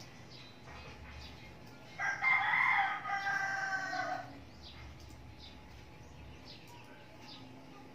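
Rooster crowing once: a single long, loud crow starting about two seconds in and lasting a little over two seconds.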